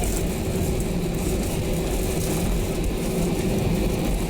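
Airbus A320 cabin noise from inside the airliner: a steady low rumble with engines running and a faint steady tone above it.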